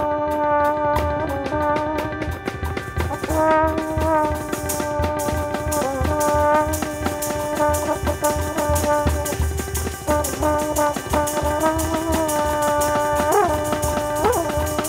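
Improvised music: a trombone holds long notes, bending the pitch with quick slide glides twice near the end, over conga and drum kit played underneath.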